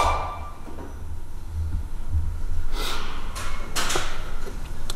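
A few light knocks and handling noises on the bare engine block, three short sharp sounds in the second half, over a steady low workshop rumble.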